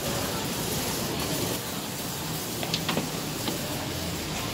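Busy street ambience: a steady wash of traffic and passers-by, with a few sharp clicks about two and a half seconds in.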